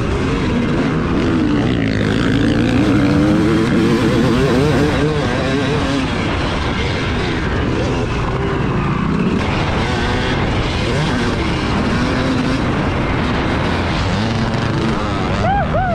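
Yamaha 250cc two-stroke dirt bike engine revving up and down as it is ridden hard around a motocross track, its pitch rising and falling again and again, with a quick sharp rev just before the end.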